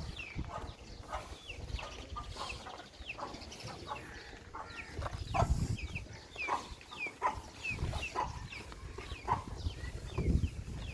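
Birds chirping over and over, many short high falling chirps a second, over irregular low rumbling bumps.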